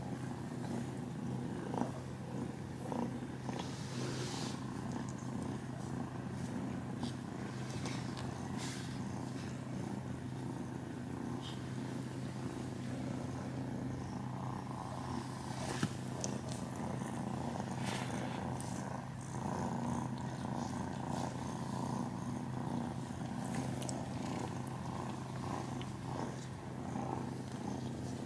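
Domestic cats purring steadily at close range while curled up together during grooming, with a few faint clicks and rustles of movement.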